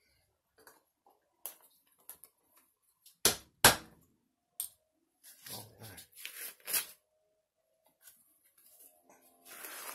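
Metal lid pressed onto a can of wood stain, two sharp clicks about three seconds in, followed by a few seconds of rustling from a nitrile-gloved hand handling things on the table.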